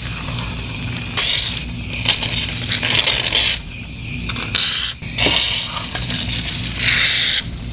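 Aerosol cans of shaving cream hissing as foam is sprayed out, in several spurts that stop and start again, two cans at times overlapping.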